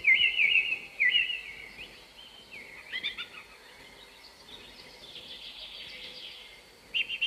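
A small bird chirping in short, quick twittering phrases: three bursts in the first three seconds, then quieter, with another phrase starting near the end.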